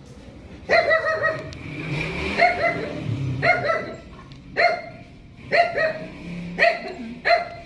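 A dog barking repeatedly: about seven short, loud barks, roughly a second apart.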